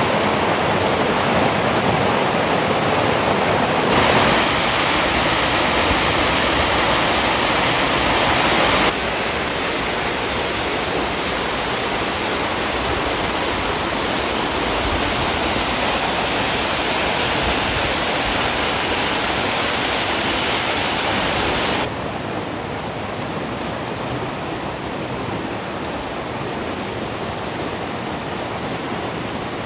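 Shallow mountain stream rushing over rocks and small cascades, a steady hiss of running water. Its level jumps abruptly a few times, louder for a while then softer.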